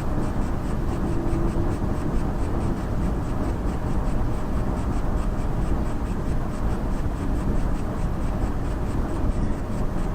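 AMD Radeon RX Vega graphics card under load making an irregular crunching, crackling noise, with a faint high ticking repeating about three times a second. The cause is unknown; the owner wonders whether it is coil whine or the card's LED load meter.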